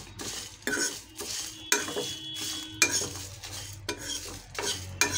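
Steel spoon stirring and scraping whole spices, lentils and curry leaves around a kadai as they are dry-roasted: repeated short scrapes of metal on the pan at an uneven pace.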